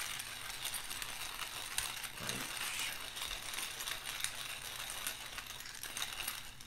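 Brass pepper mill being twisted by hand, grinding peppercorns in a steady dry grinding with many small clicks.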